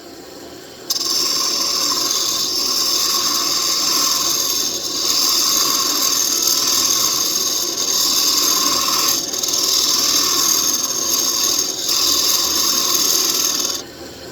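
A lathe turning tool cutting into a spinning mahogany workpiece, a steady hissing scrape. It starts about a second in, eases off briefly three times as the tool is shifted, and stops just before the end.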